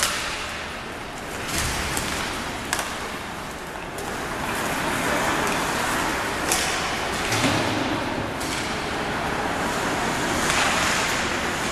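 Ice hockey play: skate blades scraping and hissing on the ice, with a sharp clack of stick on puck or stick every few seconds, about six in all.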